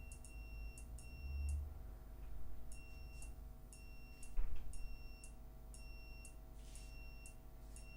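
The buzzer of a home-made HC-SR04 ultrasonic-sensor alarm sounding a string of short, high-pitched beeps, about two a second, with a gap of about a second after the first few. This is the audible alarm, set off by someone within about a metre of the sensor. A single knock about halfway through is the loudest sound.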